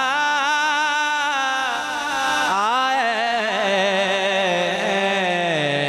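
A man singing a naat, an Urdu devotional poem in praise of the Prophet, into a microphone. He draws the words out in long held notes with a wavering vibrato, breaking into a new, lower phrase about two and a half seconds in.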